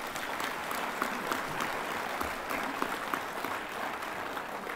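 Applause from many people clapping together, a dense, even patter of claps.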